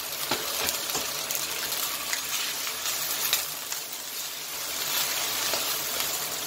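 Broccoli and chicken nugget pieces sizzling in oil in a wok while a spatula stirs them, with scattered clicks and scrapes of the spatula against the pan.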